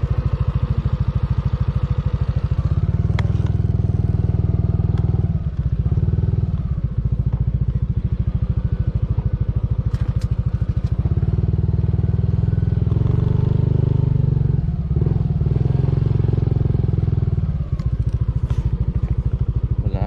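Motorcycle engine running steadily as it is ridden, a low, evenly pulsing drone with a few brief dips in level.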